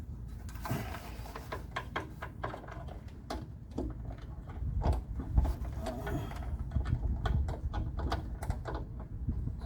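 Irregular clicks, scrapes and knocks of wiring being tugged and worked through a hole in a van's body panel while it is snagged, over a low rumble.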